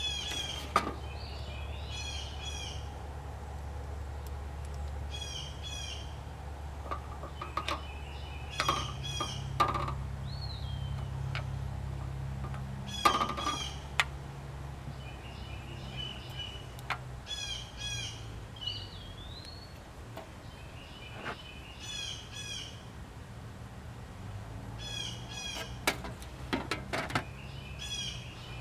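A small bird repeats a short chirped phrase every couple of seconds over a steady low hum. Scattered sharp clicks and knocks of metal parts come from the saw handle being fitted back onto the blade, loudest about halfway through and in a cluster near the end.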